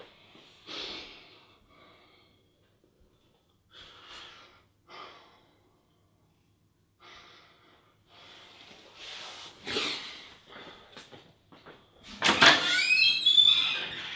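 A man's heavy, uneven breaths, a handful of separate breaths and sniffs a second or more apart. Near the end comes a loud, squeaky creak, as of a door being opened.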